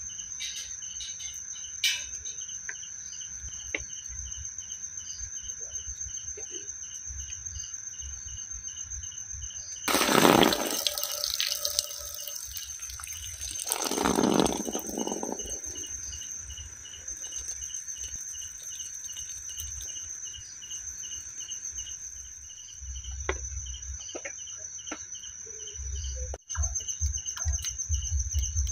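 Crickets and other insects chirping steadily, one high continuous trill over a pulsing chirp about three times a second, with a low wind rumble on the microphone. Two loud rushing noises, each a second or two long, break in about a third and a half of the way through.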